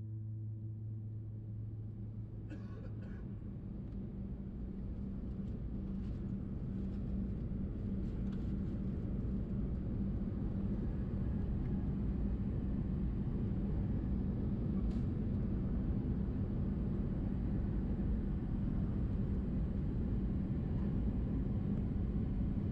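Airbus A320 cabin noise: a steady rumble of engines and rushing air. It grows slowly louder over the first half and then holds. A music track fades out in the first few seconds.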